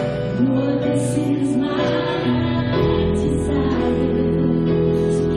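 Live worship music: a church band with guitars and keyboard playing a gospel song while voices sing together.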